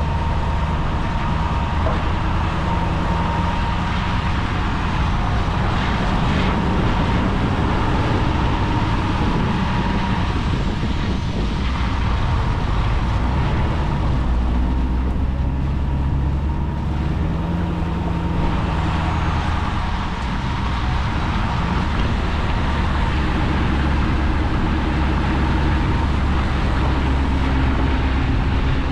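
Ford Super Duty pickup truck driving, its engine drone and road noise steady with slow shifts in engine pitch, plus a thin constant whine.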